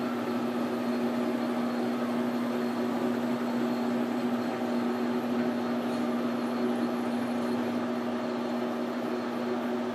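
A 12x36 Precision Matthews metal lathe running at about 205 rpm while a parting blade feeds into a 1.5-inch steel bar: a steady hum of constant pitch over an even hiss.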